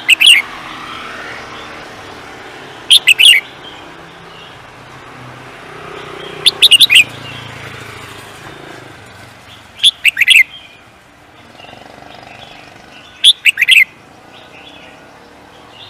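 A songbird singing short, loud phrases of three or four quick notes, each note sweeping down in pitch, repeated five times about every three and a half seconds.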